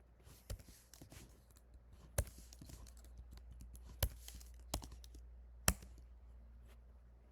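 Sparse keystrokes on a computer keyboard: about five sharper clicks among fainter taps, over a steady low hum.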